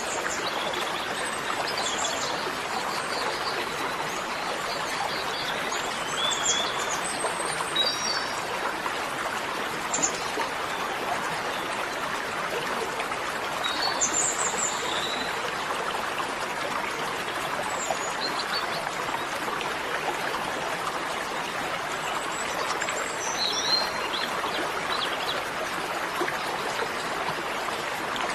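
Steady rush of running water with scattered short, high bird chirps.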